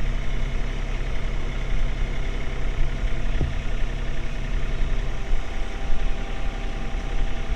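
John Deere compact tractor's diesel engine running steadily while the operator works the bale spear into a round bale, with one short dull knock about three and a half seconds in.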